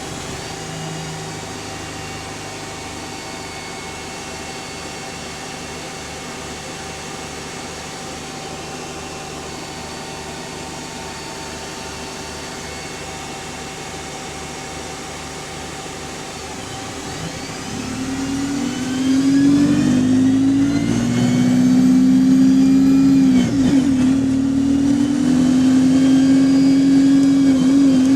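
Diesel bus with a Voith automatic gearbox, heard from on board. It runs steadily for about 17 seconds, then the engine pulls hard and gets louder, with a gearbox whine rising in pitch through several steps.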